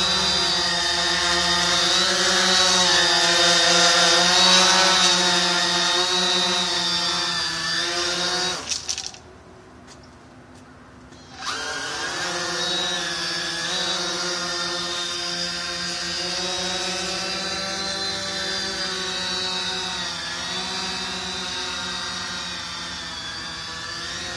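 CX-20 quadcopter's brushless motors and propellers whining, the pitch wavering as the throttle changes. About nine seconds in the motors cut out for a couple of seconds, then spool back up and keep running.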